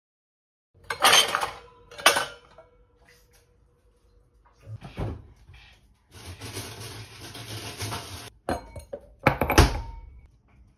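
Glassware clinking on a countertop. A stemless glass is knocked and set down with a brief glassy ring, then an ice cube clinks into it and is stirred with a spoon. A few seconds of steady rushing noise come in the middle.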